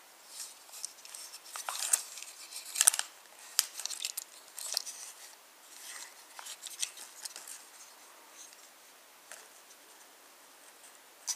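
Small plastic toy train engine handled in the fingers and turned over, giving short sharp clicks and scrapes, busier in the first half and sparser after.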